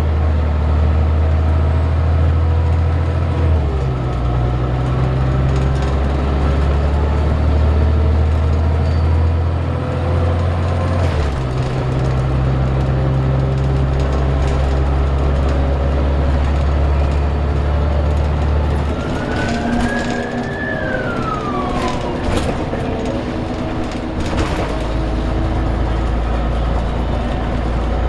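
Scania CN94UB bus's diesel engine and driveline heard from inside the passenger saloon while driving: a steady low drone that steps in pitch three times, as at gear changes, with whines gliding along beneath. About twenty seconds in, a higher whine rises and then falls away over a few seconds.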